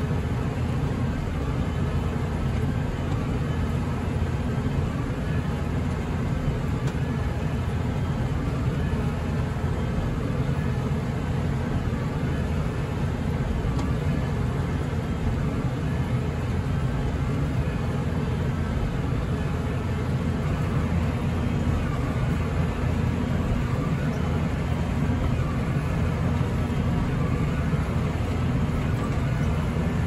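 Tractor engine running steadily under load, heard from inside the cab while it drives a straw baler.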